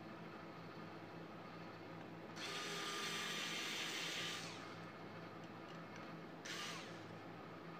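Handheld rotary tool running at high speed for about two seconds, then spinning down with a falling whine. It gives a second short burst near the end.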